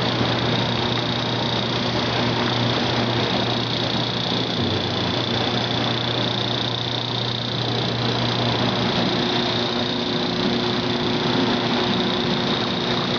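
Potato washing machine running steadily: a low motor hum under a dense, even noise, with a faint high whine held throughout.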